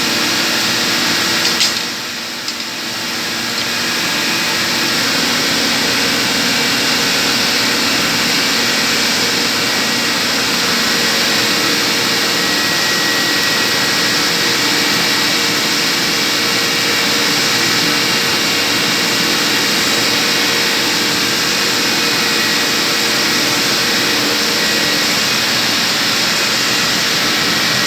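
Loud, steady noise of running chiller-plant machinery, with several steady hum tones over a broad rush. It drops briefly about two seconds in and then comes back.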